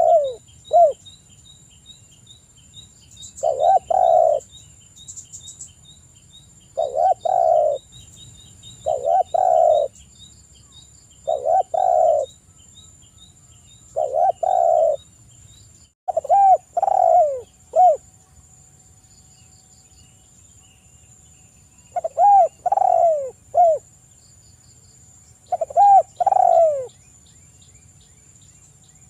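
Spotted dove (tekukur) cooing repeatedly in its three-note 'kuk 3' call: short phrases of a few falling hooting notes every two to three seconds, with a pause of about four seconds past the middle. A faint, fast, high ticking chirp runs under the first half.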